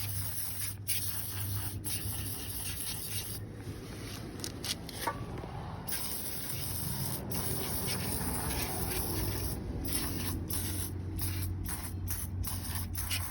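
Aerosol can of lubricant spraying onto stuck wheel lug nuts, a hissing spray given in repeated bursts with short breaks between them, to soak the nuts so they will loosen.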